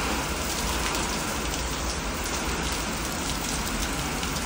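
Heavy hurricane rain pouring down in a dense, even hiss, with gusting wind making a low rumble underneath.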